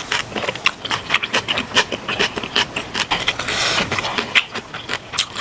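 Close-up, wet chewing of a large, tough mouthful, with quick irregular smacks and clicks. A brief rushing noise comes about two-thirds of the way in.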